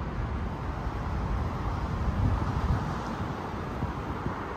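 Steady outdoor street noise, with wind rumbling unevenly on the microphone over road traffic.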